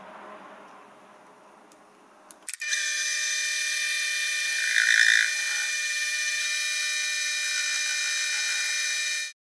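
Chinese benchtop lathe switching on after a couple of clicks, then running with a steady high motor whine as the four-jaw chuck turns a brass part against the cutting tool. The whine swells briefly about halfway through.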